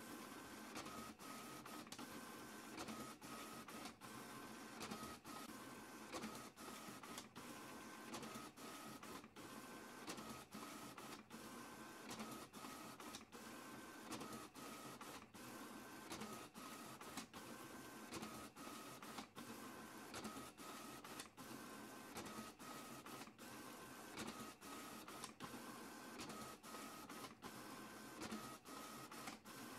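Printer running a print job: a faint, steady mechanical whir broken by short pauses about once a second, with a thin whine that comes and goes.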